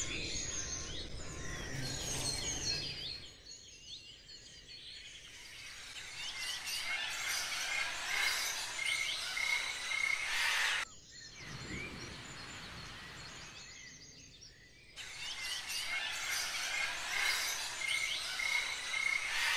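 Many birds chirping and singing together, a nature soundscape of quick repeated calls. It cuts off abruptly about 11 seconds in, goes faint, and comes back suddenly about 15 seconds in.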